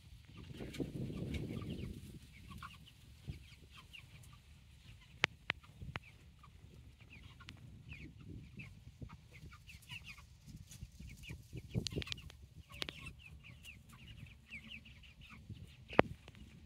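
A crowded flock of young white chickens making many short, high clucks and peeps throughout. A low rumble sounds about a second in, and a few sharp clicks cut through, the loudest near the end.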